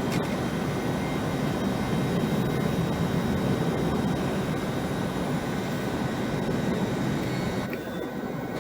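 Passenger train running at the station with a steady rumble and hiss, easing off near the end.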